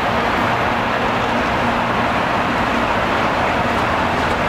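Steady rushing rumble of Shinkansen train noise, holding level without rising or falling.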